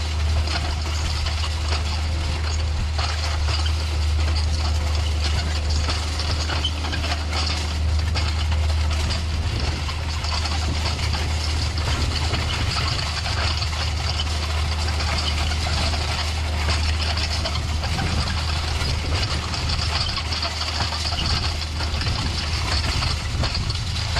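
Tractor engine running steadily at a constant speed, with wind buffeting the microphone.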